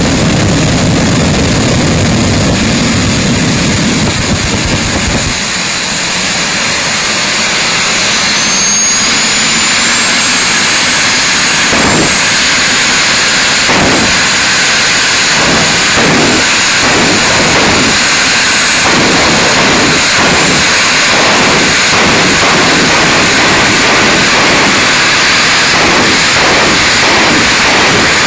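Turbine engine of a jet dragster running loud. A high whine rises about eight seconds in, and the roar carries repeated short pulses through the second half.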